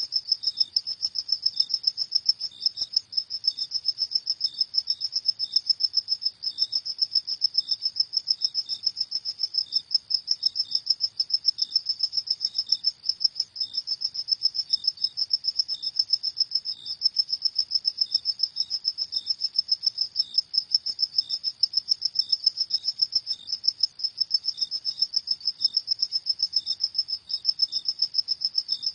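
Crickets chirping in a steady, rapid, high-pitched trill, with a second, lower chirp repeating about once a second.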